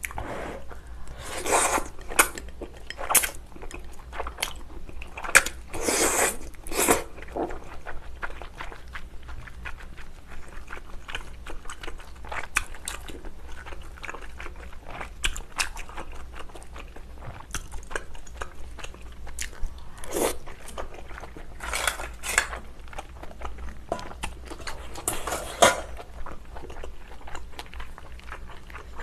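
Close-miked eating: a person slurping wide Chinese glass noodles and chewing, with many small wet clicks and a few louder slurps spread through.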